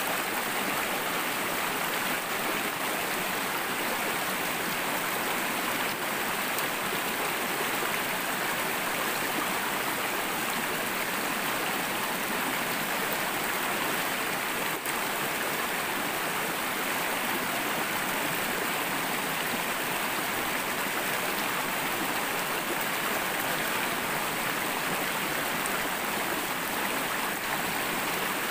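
Shallow rocky stream rushing over stones in small rapids: a steady, even water rush.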